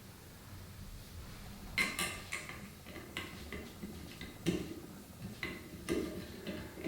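A series of light, scattered clicks and knocks, about eight of them, from small hard objects being handled and set down.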